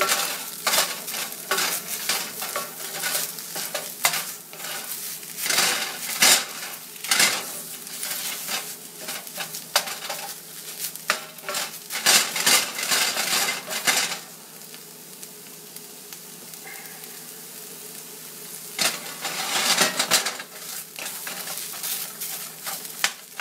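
Canned tuna sizzling in a cast iron skillet while a utensil stirs and scrapes it against the pan in quick, clattering strokes. The stirring stops for about five seconds after the middle, leaving only the steady sizzle, then resumes briefly before settling back to the sizzle.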